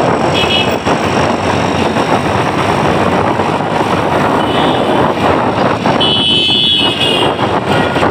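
Busy city road traffic heard from a moving vehicle: steady engine and road noise, with vehicle horns honking, a short toot about half a second in and a longer honk about six seconds in.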